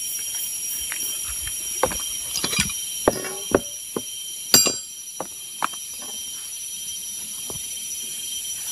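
Steady high-pitched drone of forest insects, unbroken throughout. Over it, a scatter of sharp clicks and knocks from hand tools being picked up and handled, bunched in the middle with the loudest near the middle.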